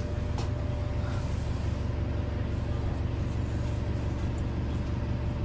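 The Cummins ISL9 diesel of a New Flyer XDE60 hybrid articulated bus idling while the bus stands at a stop, heard from inside the cabin as a steady low hum. A faint click comes about half a second in.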